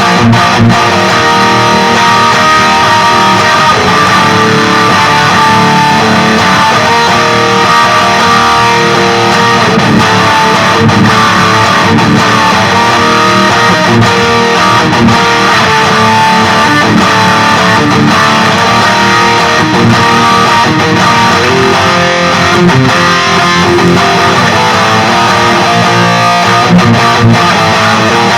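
Electric guitar played through a Peavey Vypyr 15 modelling amp on its XXX high-gain amp model: an LTD Deluxe guitar with active pickups, played continuously with a distorted tone.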